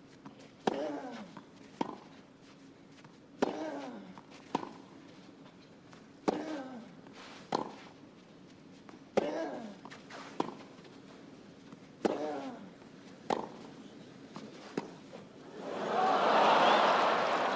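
Tennis ball struck back and forth in a long rally on a clay court, about eleven racket hits, every other one followed by a short falling grunt from the player. The rally ends about two seconds before the close and the crowd breaks into loud cheering and applause.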